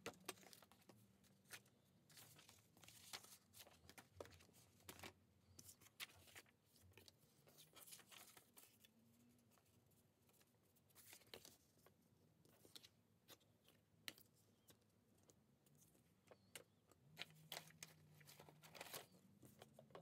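Faint handling of paper and craft supplies on a desk: card and pages rustling, with scattered light taps and clicks as things are picked up and set down.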